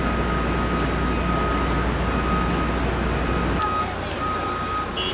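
City street ambience in heavy rain: steady traffic rumble under an even hiss of rain, with a thin steady high tone running through. The low rumble drops away sharply about three and a half seconds in, leaving mostly the rain hiss.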